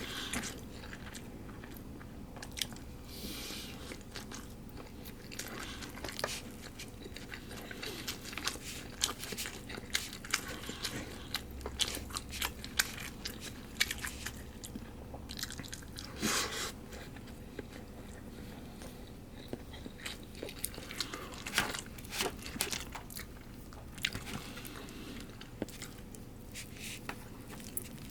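A person eating karaage (Japanese fried chicken) and rice, heard close up: chewing, with many irregular crisp crunches and bites.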